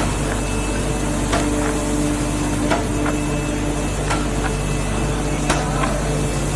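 Corrugated cardboard production line machinery running: a steady mechanical hum and drone, with irregular sharp clicks and knocks.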